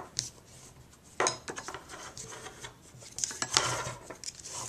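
Cardstock being folded and creased with a bone folder: a few short scraping, rustling rubs as the folder is drawn along the fold, with light taps of paper and tool on the work surface.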